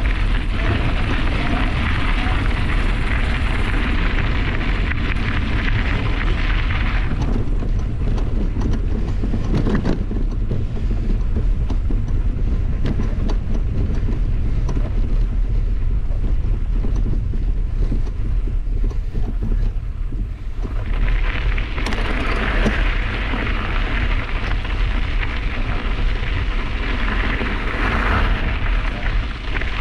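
Wind buffeting the microphone with a steady low rumble, over the gritty crunch of mountain-bike tyres rolling on a gravel path. The crunch fades out about seven seconds in, while the bike crosses grass, and returns about twenty seconds in, back on the gravel.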